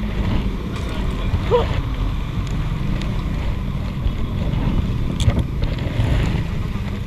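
Small motor scooter engine idling with a steady low drone, with wind rushing on the microphone.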